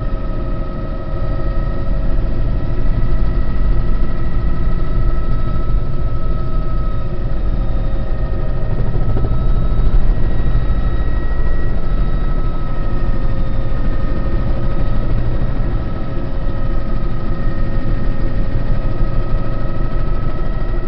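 Bell 206 JetRanger helicopter in flight, heard from inside the cockpit: the Allison 250 turboshaft's steady whine at several pitches over a dense low rumble of rotor and airframe, loud and unbroken.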